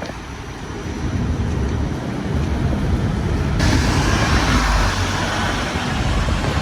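Low rumble of vehicles, with a steady hiss that comes in suddenly about three and a half seconds in.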